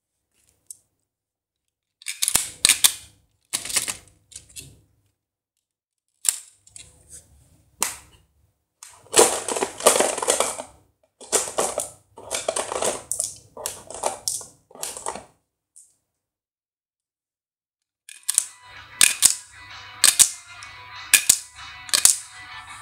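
Garden Phoenix B-daman toy launcher being loaded and fired, in groups of sharp plastic clicks and knocks as marbles are shot. Some groups are followed by a second or two of rattling.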